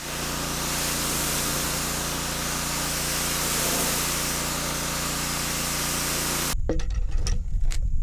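Pressure washer running steadily, a loud hiss of spray over a low motor hum, the jet hitting the bark of a log. About six and a half seconds in it cuts off abruptly, followed by a few sharp knocks.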